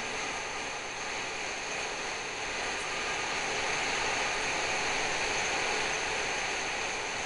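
Steady rushing noise from a freight train passing at a distance, swelling a little partway through, with no distinct horn or clanks.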